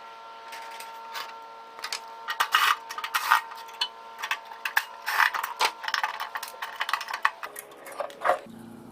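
Irregular metallic clicks, clinks and knocks from parts and tools being handled while a microwave oven is dismantled, over a steady hum that shifts pitch near the end.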